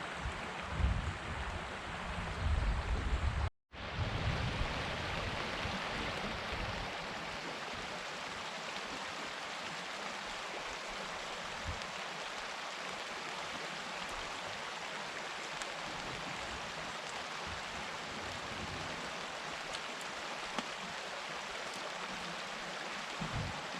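Steady rushing of a flowing river. There are a few low bumps in the first seconds, and the sound cuts out for a moment about three and a half seconds in.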